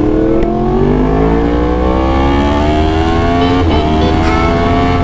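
2019 Yamaha R1's crossplane inline-four through an aftermarket exhaust, the engine note climbing slowly and steadily in pitch as the revs build, with a brief hitch about three and a half seconds in.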